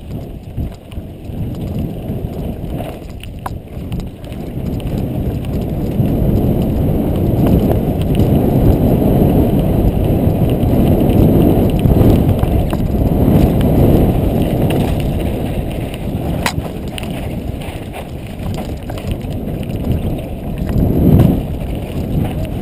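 Mountain bike descending a dirt trail at speed, heard on a helmet-mounted camera: a rushing noise of wind on the microphone with tyre and frame rattle, growing louder as the bike picks up speed after the first few seconds. A couple of sharp knocks stand out, one early and one about three quarters of the way through.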